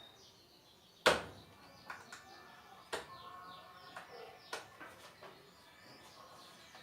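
Birds chirping with short falling calls. Several sharp knocks or clicks cut across them: a loud one about a second in, then fainter ones every second or so.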